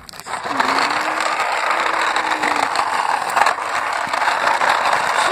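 Plastic toy bus rolling over rough asphalt, its wheels and gearing whirring and rattling steadily. The sound starts about a third of a second in.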